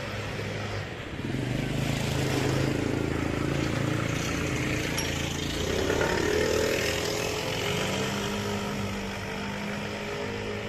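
Motor vehicle engines running close by in street traffic, their pitch shifting up and down as they pass; the sound swells about two seconds in and again midway through.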